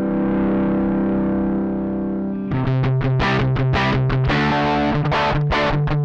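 Overdriven electric guitar played through a Joyo American Sound amp-simulator pedal, which models a Fender Deluxe amp. A held chord rings out, then about halfway through a choppy rhythm riff of short, repeated chord strokes begins.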